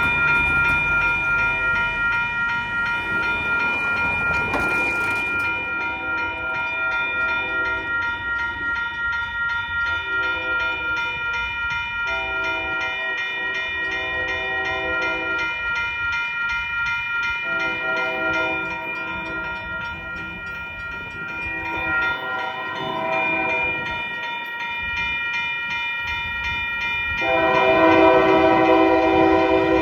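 Union Pacific locomotive horn sounding a series of chord blasts, the last a loud long one near the end, over a railroad crossing bell ringing steadily.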